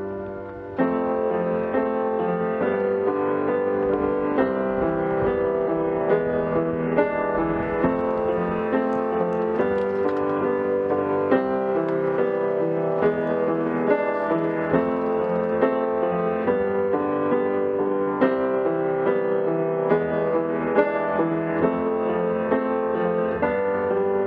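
Background piano music. One piece fades out and another begins about a second in.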